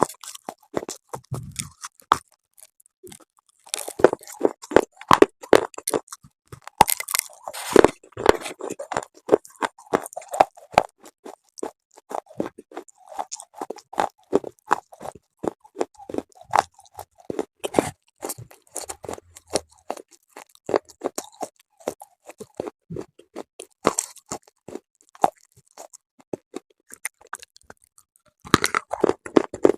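Close-miked biting and chewing of something hard and brittle: a steady run of sharp, dry crunches, with denser crunching from about four to nine seconds in and again near the end.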